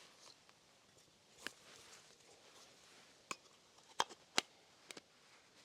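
Quiet room with a handful of short, sharp clicks and taps, scattered irregularly; two close together about two-thirds of the way through are the loudest.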